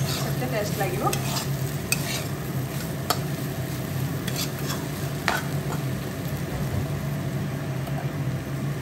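Soya chunks and potato pieces sizzling in oil in a kadai while a flat spatula stirs them, scraping and clinking against the pan several times in the first half.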